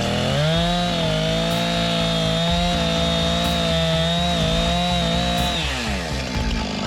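Chainsaw revving up to full throttle and held there for about five seconds while cutting a notch in a tree trunk, then dropping back to idle near the end.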